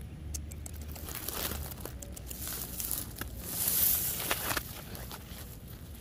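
Grass blades rustling and crackling right at the microphone as the cockatiels pick through the lawn, with scattered small clicks. It swells into a louder brushing about four seconds in.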